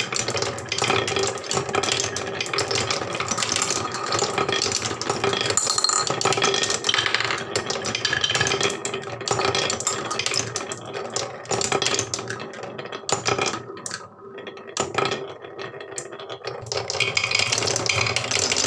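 Several small balls rolling round and round a wooden funnel bowl of a marble run, a continuous rolling rumble with many small clicks and rattles as they knock together and drop through the hole.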